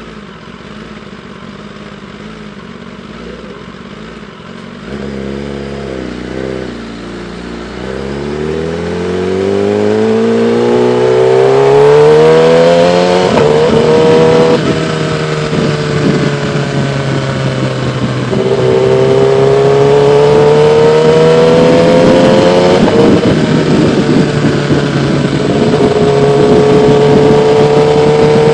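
2016 Kawasaki ZX-10R's inline-four engine, heard from the rider's helmet: ticking over quietly at first, then pulling away about five seconds in, its pitch climbing steadily with sudden drops at three upshifts. Wind noise rises with the speed.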